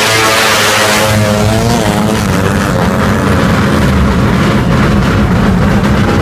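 Tuned Suzuki Satria FU drag bike engine, bored out to 200 cc, revving loudly, its pitch rising and falling in the first two seconds, then running on hard and steady.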